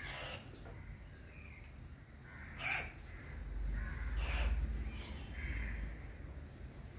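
Crows cawing repeatedly, a series of short harsh calls, over a low background rumble that swells in the middle.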